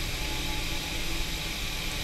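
DeVlieg Micropoint tool grinder's electric motor running steadily, an even hum and rush with a faint steady tone over it.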